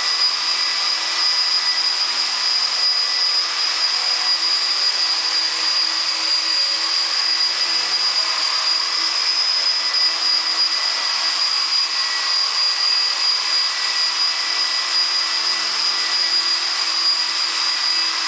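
HK250GT electric 250-size RC helicopter in a hover: a steady high whine from its motor and drivetrain over the hiss of the spinning rotor blades.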